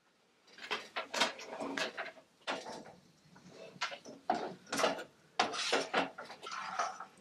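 Cooked macaroni tipped into a saucepan and stirred into cheese sauce with a spoon: an irregular run of scrapes and clinks of the spoon against the pan, starting about half a second in.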